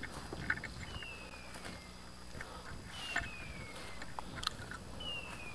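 A hunting dog's beeper collar sounding a short falling electronic chirp at a steady pace, about once every two seconds. Twigs and brush crackle underfoot between the chirps.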